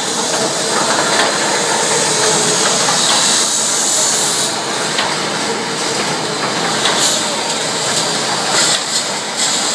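Automatic wire mesh welding machine running: a loud, steady hiss with a few short clicks in the second half.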